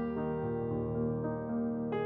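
Background music: slow, soft piano notes, a new note struck about every half second, with a firmer one near the end.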